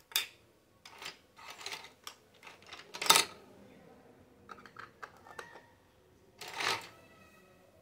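Small plastic toy kitchen pieces (pots, lids, plates) being picked up and set down on a tabletop: a string of light plastic clicks and taps, the sharpest about three seconds in.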